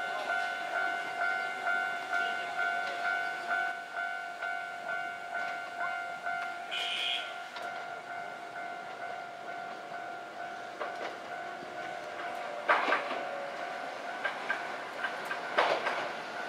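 Railway level crossing warning bell ringing at a steady beat, about one and a half strikes a second, fading out about two-thirds of the way through as a Kintetsu electric train rolls into the station. A short high squeal about seven seconds in and two sharp clacks near the end from the train's wheels.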